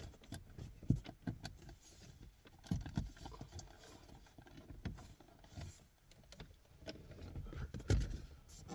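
Scattered light clicks and dull knocks from hands handling and prying plastic dashboard trim in a car interior. A few low thumps land about every two seconds, the loudest near the end.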